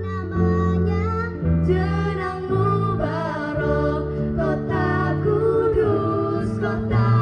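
Background music: a song with a sung melody of long, held notes over a bass line that changes note about once a second.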